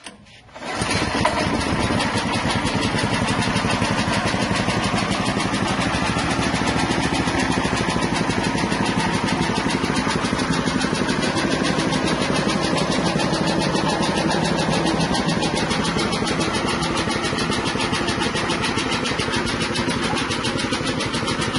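Soybean cracking and hull-separating machine running steadily under its engine or motor drive, a loud, even mechanical hum with a fast pulse. It comes in about half a second in and holds unchanged.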